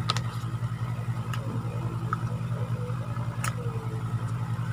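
Steady low motor-like hum with a fast, even pulse, and a few light clicks and taps from small packaged items being handled.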